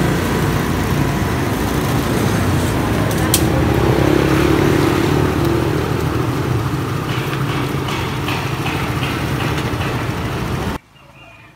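Busy motorbike street traffic: scooter engines running and passing close by, with people talking in the background. The noise drops away abruptly near the end.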